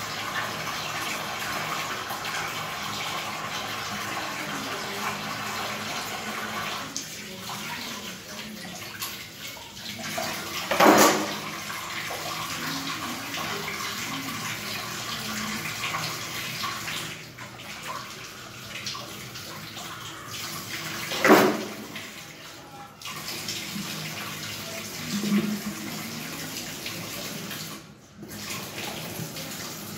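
Tap water running steadily into a stainless-steel sink while utensils are washed and rinsed by hand. Two brief, much louder noises come about ten seconds apart, a little over a third of the way in and again about two-thirds of the way in.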